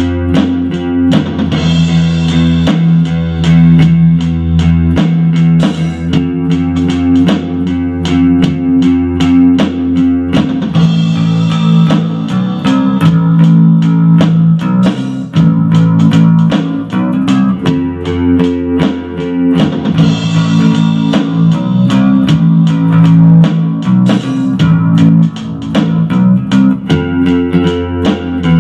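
Instrumental rock music: an electric bass guitar plays a repeating line over drums and guitar. The beat stays steady, while a brighter upper part comes in and drops out in sections.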